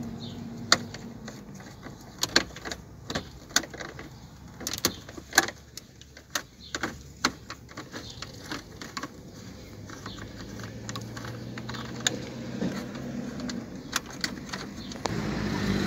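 Irregular sharp clicks and light metallic rattles of a 9/32-inch socket wrench backing out screws from plastic dashboard trim, busiest in the first half and sparser later.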